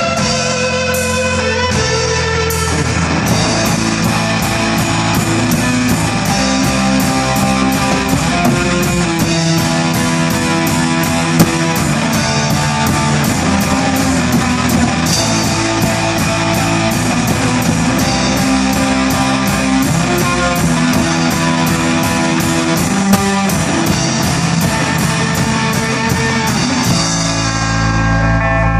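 Live rock band playing: distorted electric guitar and electric bass over a drum kit keeping a steady beat, with cymbal strokes about twice a second. Near the end the drums stop, leaving the guitar and bass ringing.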